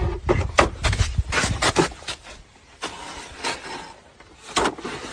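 Irregular knocks and scuffs as a long wooden pole is handled on snowy ground, busiest in the first two seconds.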